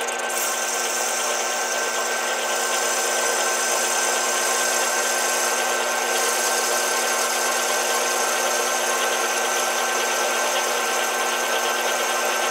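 Metal lathe running steadily as a small boring bar cuts the inside of a black filter step-up ring, a machine hum with fixed whining tones. A higher hiss of cutting joins about half a second in and holds.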